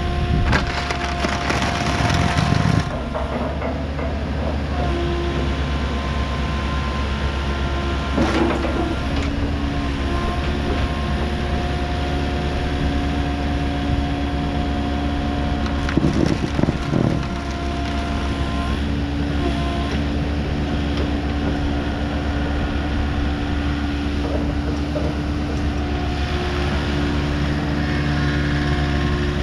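Volvo ECR88D midi excavator's diesel engine running under load, with a hydraulic whine whose pitch steps up and down as the machine works. Three louder noisy bursts stand out: near the start, about eight seconds in, and around sixteen seconds in.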